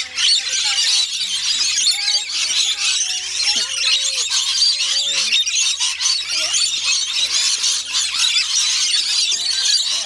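A large flock of rainbow lorikeets screeching and chattering without a break, a dense, shrill din.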